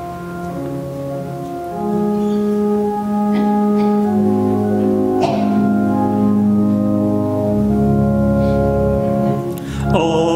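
Organ playing slow, sustained chords that change every second or so, as the introduction to a sung psalm.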